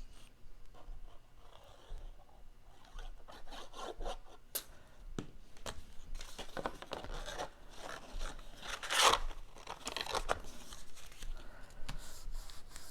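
Cardstock being handled and glued: scattered rustling, light scraping and small taps of paper, with a louder scrape of paper about nine seconds in.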